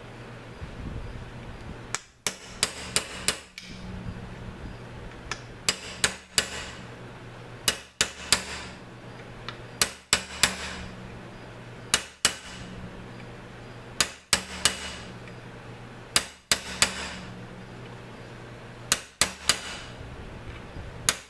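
Small hammer tapping a pin into the trigger-guard hole of an AR-15/M-4 lower receiver, driving it home. The sharp metallic taps come in short bursts of two to four, every couple of seconds, each ringing briefly.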